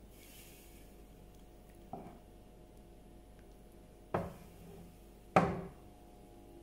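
Wooden spoon knocking against a non-stick pan of soup while stirring: three knocks, about two, four and five and a half seconds in, the last one loudest.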